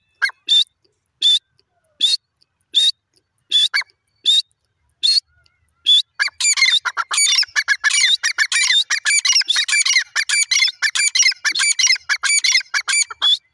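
Grey francolin calls: sharp single notes about every three-quarters of a second, then from about six seconds in a dense, overlapping run of rapid, repeated calls that stops abruptly just before the end.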